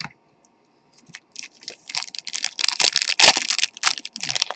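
Trading-card pack wrapper crinkling and crackling as it is handled and torn open, starting about a second in and growing busier.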